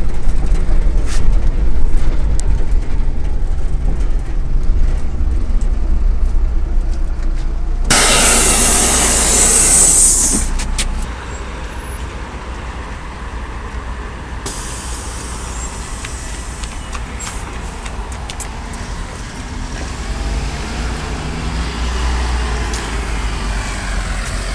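Low, steady rumble of a MAZ-103 city bus's engine heard from on board, then about eight seconds in a loud two-second hiss of compressed air from the bus's air brakes or pneumatic doors. After that the bus idles at the stop, heard from outside, and its engine note swells near the end as it starts to pull away.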